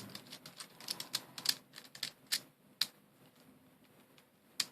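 Small plastic pieces of a V-Cube 7 puzzle cube clicking and tapping against each other as they are handled and fitted together. There is a string of irregular light clicks over the first three seconds, then one more click near the end.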